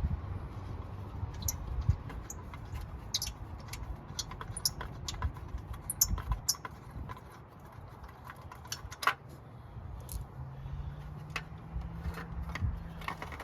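Scattered light metallic clicks and taps of small bolts being unthreaded by hand and a steel heat shield being handled. A low steady hum comes in about ten seconds in.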